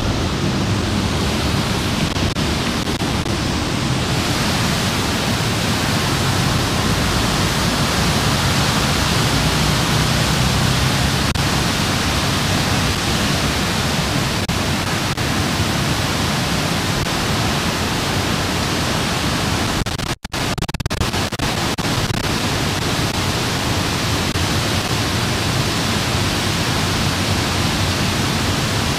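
Large fountain's central jet and ring of falling water splashing steadily into a shallow stone basin. The sound cuts out for a split second about two-thirds of the way through.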